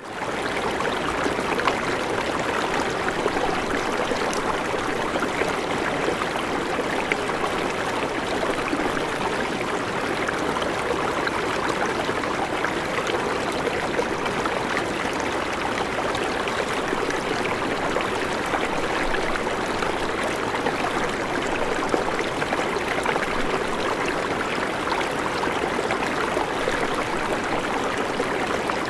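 Rushing water during a flood: a steady, dense, even noise with no breaks or distinct events.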